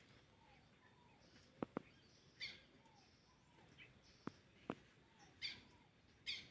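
Near silence with a sleeping dog's faint snoring breaths: short hissy puffs a few seconds apart, three in all. A few soft clicks and faint repeated chirps sit underneath.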